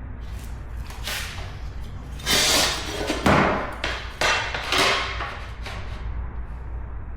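A vinyl floor plank being cut by hand: a few irregular scraping strokes between about two and five seconds in, with a thud a little after three seconds.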